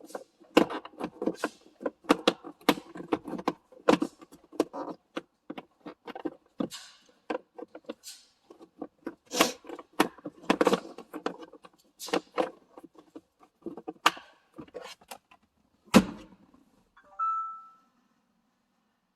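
Irregular clicks, taps and knocks of plastic car-interior parts being handled while fitting a cabin air filter, ending in one heavy thump about 16 seconds in, followed by a short electronic tone.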